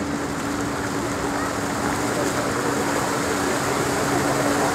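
Water jets of an illuminated fountain spraying and splashing, a steady rushing that grows slightly louder as the jets rise higher, with a steady low hum underneath.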